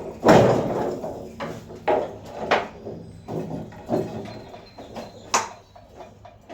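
A string of about eight irregular heavy knocks and clanks, roughly one every three-quarters of a second, the first loudest and longest. They come from work to free a Land Rover Defender rear axle held up by rusted-in springs.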